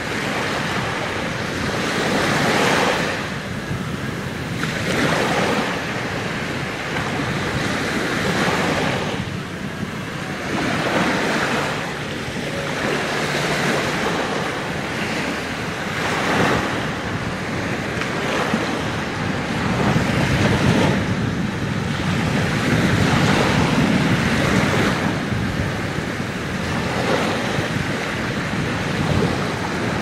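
Small waves breaking and washing up over a sandy shore, the surf swelling and falling back every few seconds.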